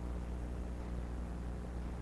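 A steady low hum, unchanging throughout, with no distinct knocks or other events.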